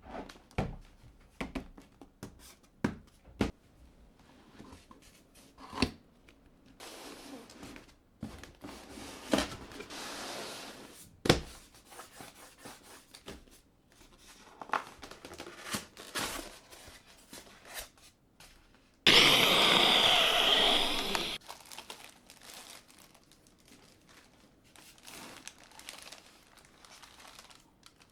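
Packaging of a boxed collectible figure being handled and unwrapped: scattered clicks and knocks, crinkling of plastic and paper, and a loud tear lasting about two seconds a little past the middle.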